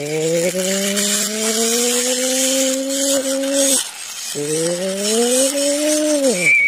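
A person making a buzzing engine noise with the voice for a toy JCB loader being pushed along. The hum climbs slowly in pitch, breaks off for a breath about four seconds in, then starts again, rises and drops away near the end.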